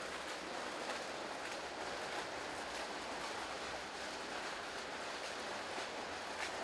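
Steady outdoor background noise, with a few faint, irregular footfalls from a group of people walking along a path.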